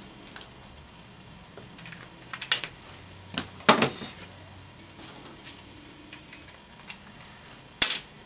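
Scattered clicks and knocks of a metal can crusher, screws and a screwdriver being handled while the crusher is fastened to a wooden counter edge, with the sharpest knock near the end.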